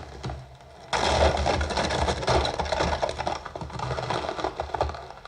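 Rapid mechanical clattering, a fast run of clicks over a low thumping, that starts abruptly about a second in and runs on steadily.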